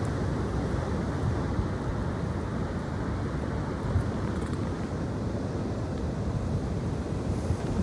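Strong wind blowing: a steady, low rushing noise.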